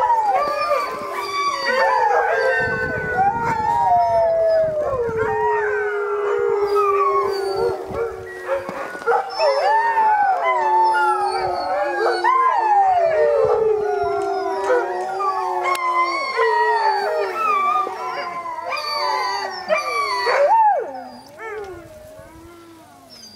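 A chorus of Siberian huskies howling together, many voices overlapping and gliding up and down, with one long low howl held beneath the rest. Near the end the chorus dies away.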